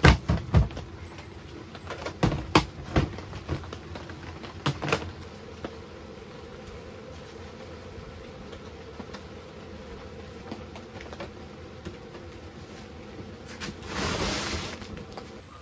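Hollow plastic knocks and clicks as a lid is pressed onto a plastic storage tote and a VCR is set down on it. This is followed by a faint steady hum, with a short rustling burst near the end.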